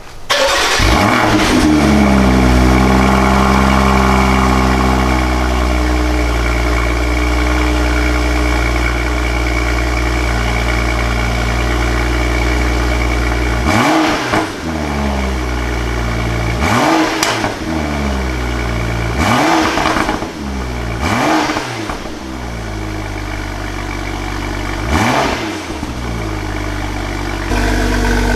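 BMW N55 turbocharged straight-six, with its exhaust valves held open, cold-starting: it catches about half a second in with a flare, settles into a high cold idle, and is then blipped five times, each rev rising and falling back to idle.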